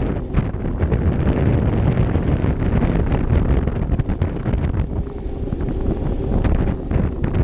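Wind buffeting the microphone of a camera riding on a moving Vespa LXV scooter, a loud, fluttering low rush, with the scooter's engine and tyre noise underneath.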